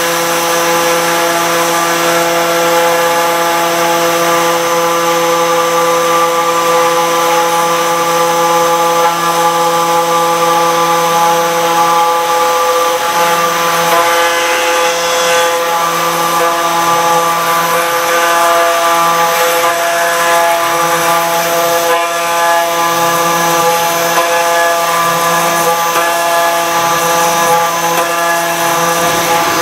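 Router spindle on a Torchmate Routermate CNC table running steadily while it cuts wet Three Rivers stone. It gives a constant pitched hum with a hiss of cutting on top, and the lowest note wavers a little partway through as the load changes.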